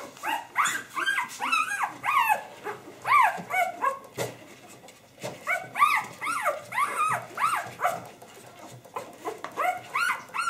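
Young Drentsche Patrijshond puppy squealing and whining in short, arching cries, in three bouts, while it is handled and set on the scale to be weighed.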